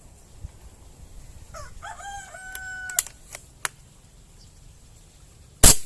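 A rooster crows once, starting about a second and a half in and ending on a held note. A few light clicks follow, and near the end comes a short, loud thump, the loudest sound.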